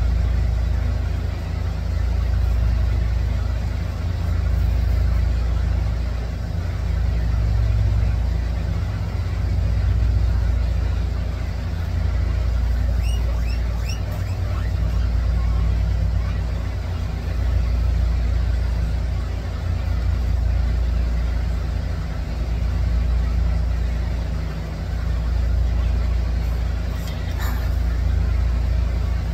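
Steady low rumble that swells and eases every couple of seconds.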